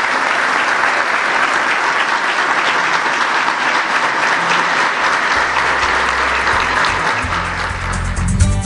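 An audience applauds with steady, sustained clapping. About five seconds in, music with a low bass line comes in underneath and grows louder near the end.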